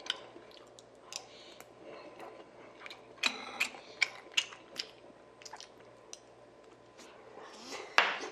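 Close-miked chewing of a spoonful of bibimbap rice, with a string of short wet mouth clicks and smacks. A louder sharp click comes near the end.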